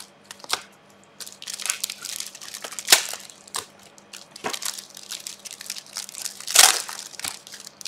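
Trading-card pack wrappers being torn open and crumpled by hand: an irregular crinkling with three louder crackles, about half a second, three and six and a half seconds in.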